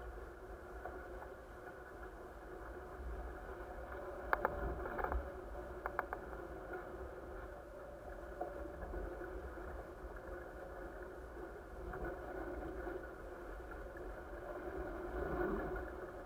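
Water rushing past the hulls of an A-Class catamaran under sail, with a low rumble of wind on the microphone. A few sharp knocks come between about four and six seconds in.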